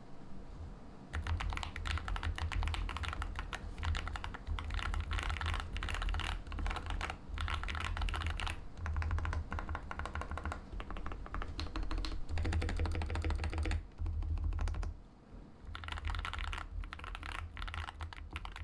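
Typing on a mechanical keyboard fitted with clone GMK Civilization PBT dye-sub keycaps: dense runs of key clacks with a few short pauses, starting about a second in.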